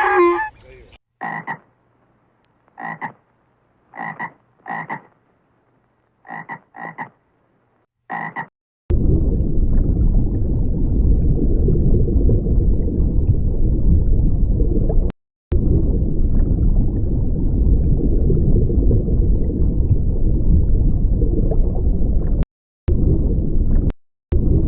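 Seven short, separate animal calls over about eight seconds, croak-like. They are followed by a loud, continuous low rumbling noise that cuts off abruptly a few times.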